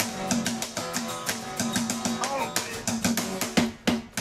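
Guitar music strummed in a steady rhythm, with a short break near the end.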